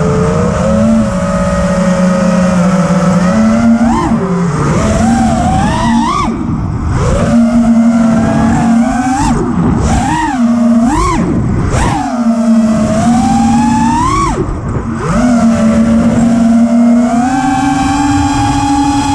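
FPV quadcopter's brushless motors and propellers whining, the pitch swooping sharply up and down again and again as the throttle is worked, then climbing steadily near the end.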